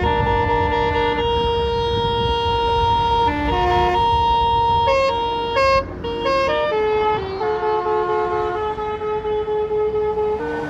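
Bus telolet horn (Basuri multi-tone horn) playing a melody of held and short stepped notes, over the low rumble of the bus engine. In the second half the notes come in quick, pulsing steps.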